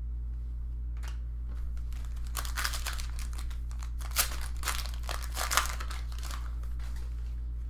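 Crinkling and rustling of a foil trading-card pack wrapper as packs of cards are opened and handled, in irregular bursts with two sharper crackles in the middle, over a steady low electrical hum.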